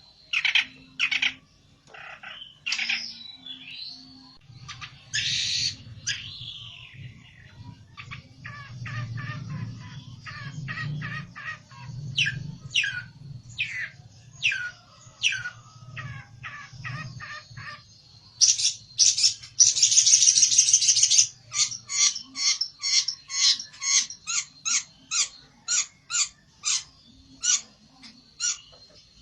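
Pelentet songbird calling in agitation, as a bird fired up against a rival: a run of sharp chirps and short downward-sweeping notes, a loud harsh burst of song about 18 seconds in, then rapid repeated chirps, roughly two to three a second.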